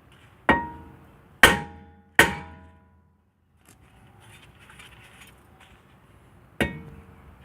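Sledgehammer striking a rusted, seized brake rotor on a Honda Odyssey to knock it loose from the hub: three heavy metallic blows in the first two and a half seconds, then another near the end. Each blow rings briefly.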